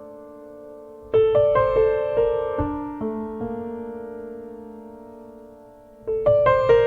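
Solo piano playing a slow postlude: a held chord fading, a phrase of struck notes about a second in that dies away, then another phrase near the end.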